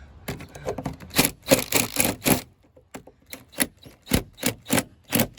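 A rapid series of sharp knocks and clacks. They come thick and fast for the first couple of seconds, then settle into separate knocks about three a second.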